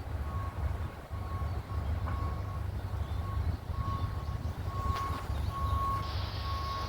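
Wind buffeting the microphone with a low rumble, while a construction vehicle's reversing alarm beeps over and over.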